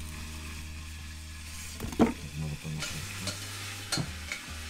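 Beef tail pieces sizzling as they fry in an Afghan kazan, with a spatula stirring them and knocking and scraping against the pot; the sharpest knock comes about two seconds in.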